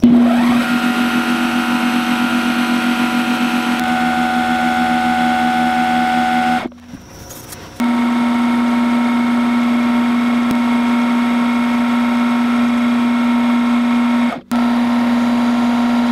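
Eastwood mini lathe running: its motor and spindle give a steady hum and whine, coming up to speed at the start, while the cutting tool faces the ends of aluminium and then brass bar stock. The sound breaks off for about a second about seven seconds in, and very briefly again near the end.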